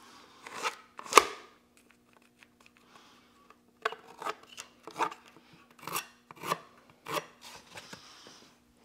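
Pencil scratching marks onto a cardboard template held against a steel frame: a series of short, sharp scratchy strokes, the loudest about a second in and then a run of them roughly every half second.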